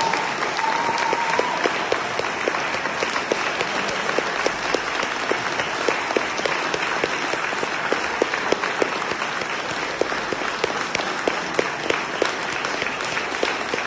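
Audience applauding steadily, a dense patter of many hands clapping, with a brief high whistle-like tone near the start.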